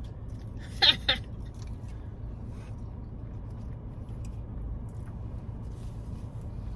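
Steady low hum of a car idling, heard from inside the cabin, with faint small clicks. About a second in there are two brief pitched vocal sounds.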